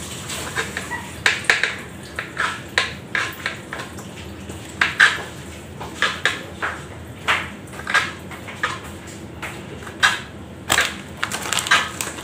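A kitchen knife slicing through raw okra pods held in the hand, making a run of crisp, crunchy cuts at roughly two a second, unevenly spaced.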